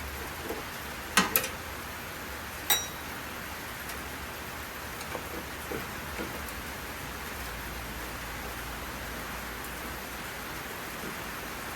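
Screws and a screwdriver clinking against the smoker's sheet-metal body while the fan cover screws are taken out: two sharp metallic clicks about a second in, another a little later, then a few faint taps, over a steady hiss.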